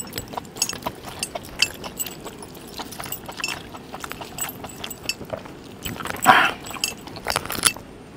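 Metal bracelets and rings jingling and clicking as bare hands tear apart cooked meat on a steel plate, with a louder noise about six seconds in.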